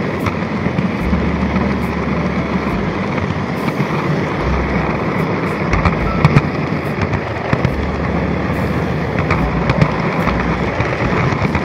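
N-gauge model train running on layout track, heard from a camera car riding on the rails: a steady rolling rattle of small wheels on rails, with scattered sharp clicks.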